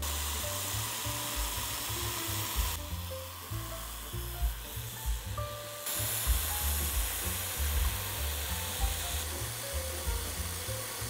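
CNC milling machine's end mill cutting a groove in a steel plate, a steady hiss that jumps in level about three and six seconds in, over background music with a low beat.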